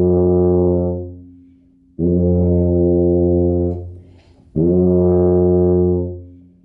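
Tuba playing three long held notes on the same low pitch, each starting cleanly, holding steady, then fading away. This is the open, fuller tone made by dropping the jaw to leave more space in the mouth, as opposed to a pinched sound from clenched teeth.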